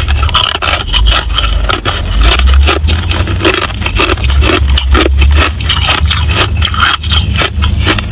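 Ice being bitten and chewed close to the microphone: a dense run of crisp crunching cracks, over a low rumble.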